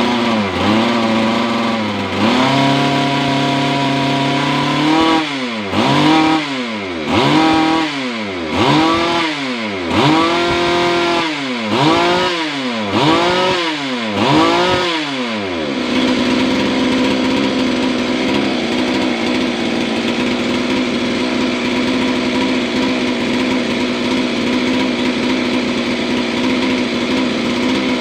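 Stihl MS 381 two-stroke chainsaw engine being revved: one held rev, then about seven quick throttle blips, each rising and falling in pitch. About halfway through it drops back to a steady idle.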